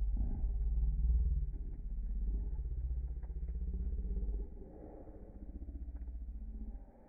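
Burning fire giving a deep, low rumble, heavy for the first four and a half seconds and then softer, with a few faint clicks.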